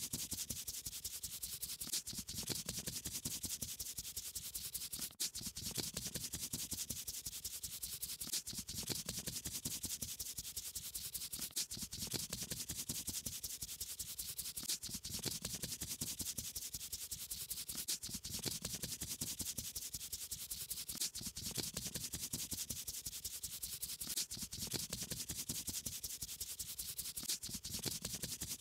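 Quick back-and-forth rubbing strokes of a brush colouring on paper, a colouring sound effect that repeats in a cycle of about three seconds.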